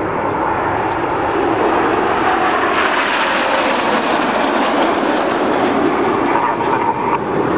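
Jet noise from the Red Arrows' BAE Hawk jets flying a bend in formation. It is a steady, dense rush that grows stronger about three seconds in and stays strong.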